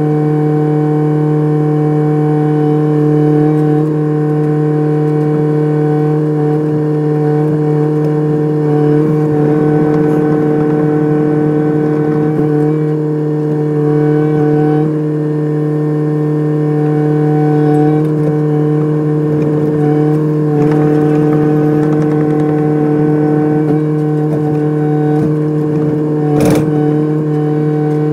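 Kubota excavator's diesel engine running at a steady speed, holding one even pitch, with a single sharp knock near the end.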